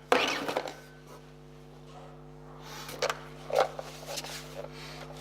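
Handling noises from an unboxed portable air compressor and its packaging: a sharp knock just after the start, then a few lighter knocks and rubs about three seconds in, over a steady low hum.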